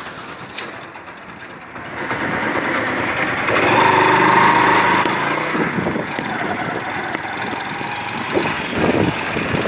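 Motor vehicle engine running in street traffic, getting louder about two seconds in, with a held tone for a couple of seconds near the middle.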